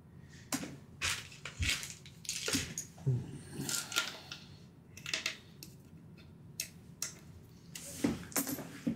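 Irregular light clicks and clacks of acrylic game tokens being picked up, knocked together and set down on a table, with short rustles between them.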